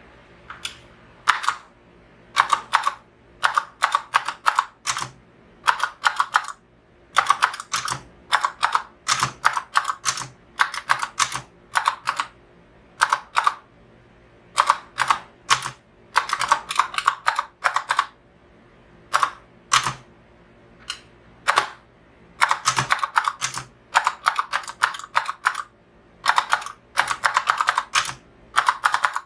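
Typing on a Redragon K605 mechanical gaming keyboard: quick runs of key clacks broken by short pauses.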